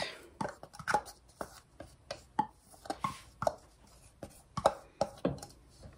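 Light knocks and taps of a teaspoon against a jar and the crock pot as minced garlic is spooned in, irregular and about two a second, some with a slight ring.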